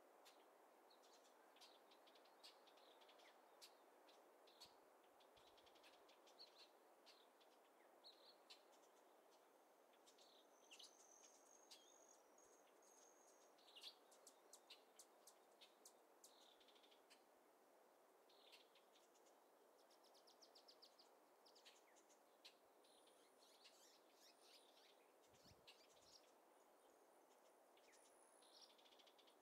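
Very faint small birds chirping and trilling on and off over a steady soft background hiss, with a couple of thin, high held notes.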